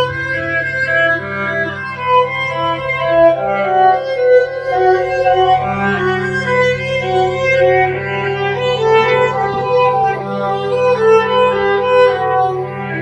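Viola playing a bowed melody, its notes changing every half second to a second, over a steady low held note.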